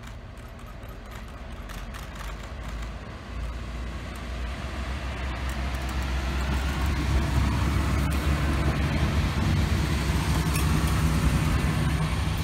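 Red regional diesel multiple unit passing close by: engine drone and wheel noise growing louder as it comes near, loudest in the second half. A few sharp clicks from the wheels in the first three seconds.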